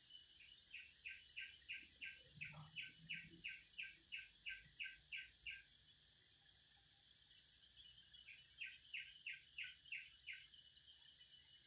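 Cicadas singing in a high, steady drone that breaks into a pulsing rhythm near the end. Over it, a series of evenly repeated chirps at about three a second runs for about five seconds, then again for two seconds later on.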